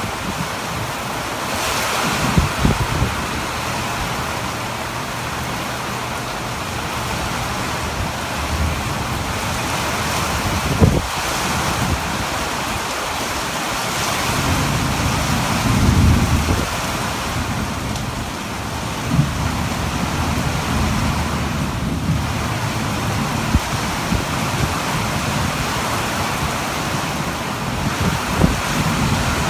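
Heavy rain pouring down steadily, with wind buffeting the microphone. A low rumble swells about halfway through.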